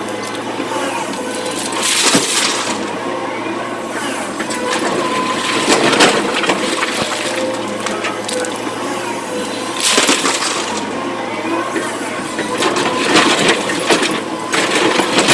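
Excavator's diesel engine running steadily under load while rock and earth crash and scrape in loud bursts every few seconds, as the bucket digs and dumps material into a tipper truck.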